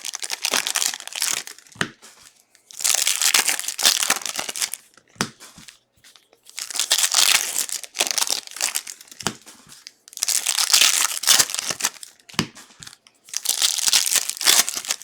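Plastic trading-card wrapping being torn open and crumpled by hand, in about five crinkling bursts a few seconds apart, with a few small knocks between them.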